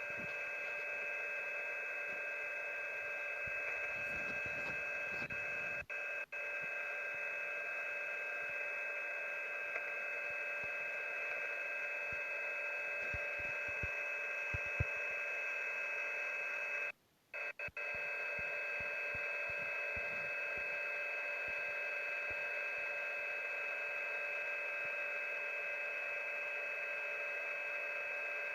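Shortwave radio receiver on an HFGCS military frequency, giving out steady tones at several pitches over a bed of static. The signal drops out briefly about six seconds in and cuts to near silence for a moment around seventeen seconds in.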